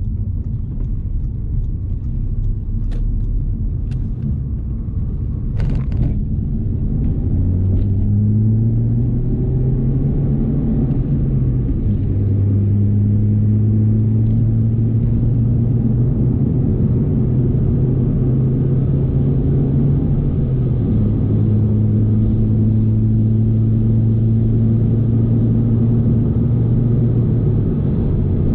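Audi A3 1.4 TFSI turbocharged four-cylinder under way with its rear silencer deleted, heard from inside the car. Road rumble at first, then a droning exhaust note comes in. The note rises in pitch, then steps down twice: about twelve seconds in and about three-quarters of the way through.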